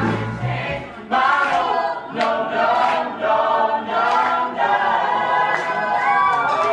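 A group of voices singing together in harmony, with musical accompaniment; a deep bass part drops out just under a second in.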